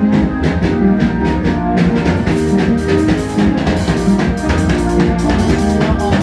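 Band music with a drum kit keeping a steady beat, bass drum and snare under sustained bass and melody notes; the cymbals grow brighter about two seconds in.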